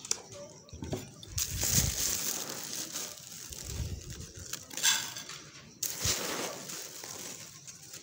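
Clear plastic bag of poultry feed crumbles crinkling and rustling as it is handled and feed is scooped out, in several bursts.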